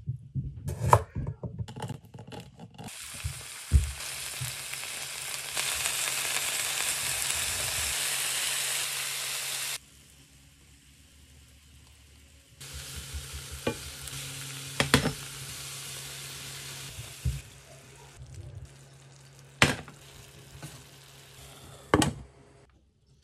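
Broccoli frying in oil in a pan: a loud steady sizzle that cuts off suddenly, stays quiet for a couple of seconds, then comes back softer as garlic is added. A few knocks at the start, and sharp metal-on-metal clinks of tongs and a glass pan lid near the end.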